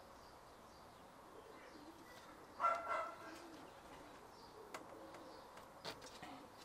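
Faint outdoor background with a short distant double call about two and a half seconds in, and two light clicks near the end.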